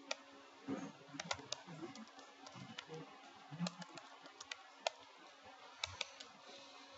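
Computer keyboard typing: irregular, fairly soft key clicks in short runs, over a faint steady electrical hum.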